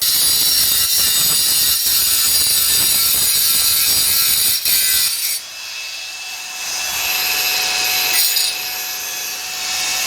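A 4-inch cordless brushless angle grinder with a Lenox Metalmax cutting disc cutting through steel: a loud, high-pitched grinding that starts suddenly. About five seconds in it eases and drops in level, then grows louder again.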